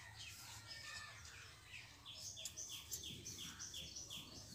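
A bird chirping: a run of short falling notes repeated about four times a second in the second half, with fainter chirps before it.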